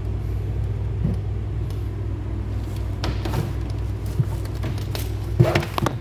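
Steady low rumble in the background, with a few rustles and light knocks of things being handled. A short cluster of louder knocks comes near the end.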